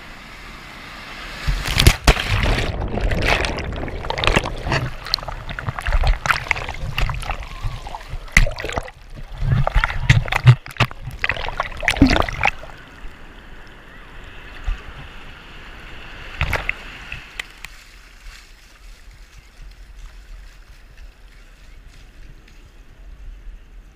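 Surf waves breaking and splashing over a waterproof camera at water level, loud and irregular for about the first half. It then settles into a softer wash of water that grows quieter near the end.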